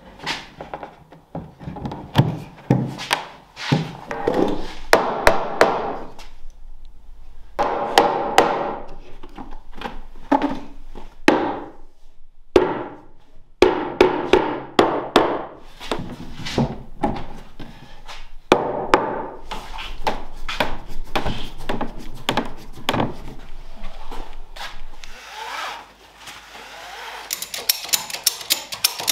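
Irregular hammer or mallet blows on oak, driving glued oak wedges home into the housings of a staircase's stringers. Near the end there is a fast run of clicks.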